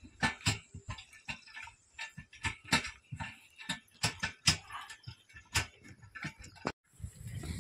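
A bullock cart clattering as a bull pulls it: irregular sharp clicks and knocks, several a second, from the wooden yoke and cart frame. Near the end it cuts off abruptly and gives way to a steady low rumble.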